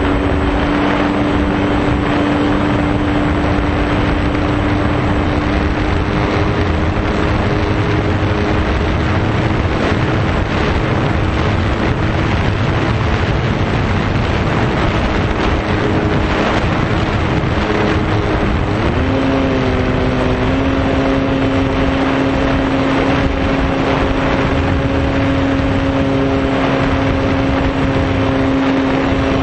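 Electric RC foam airplane's motor and propeller whining steadily, with wind rushing over the microphone; the pitch shifts and settles again about 19 seconds in.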